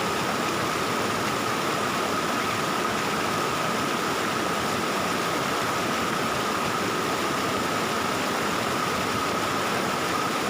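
Valley stream water flowing and babbling steadily, with a thin high steady tone running through it.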